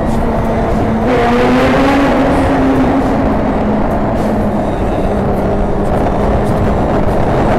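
Suzuki GSX-R1000 K8 sportbike's inline-four engine heard while riding at speed through a tunnel. About a second in the throttle opens, the sound gets louder and the pitch climbs for a couple of seconds, then the engine settles to a steady run.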